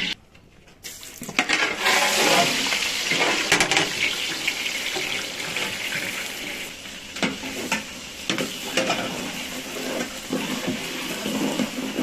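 Sliced onions frying in a large aluminium pot of hot oil: a loud, steady sizzle that starts about a second in. In the second half a metal ladle stirs and knocks against the pot several times.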